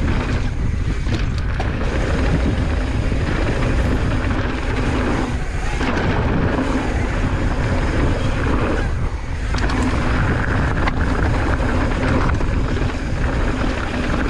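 Steady rush of wind buffeting the camera microphone, with rumbling trail noise from a mountain bike being ridden along a trail. The sound dips briefly twice, about five and nine seconds in.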